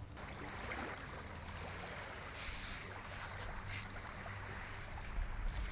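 Small waves washing steadily on a beach, with a steady low hum beneath.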